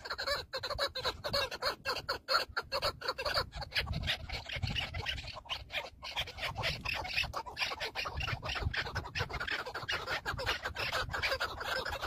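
Chukar partridges calling: a continuous run of rapid, rhythmic clucking notes, several a second.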